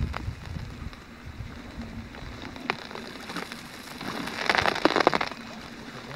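Thin new lake ice crackling and snapping: scattered single sharp cracks, then a dense burst of crackling about four seconds in, as swell from the open water works under the ice and breaks it.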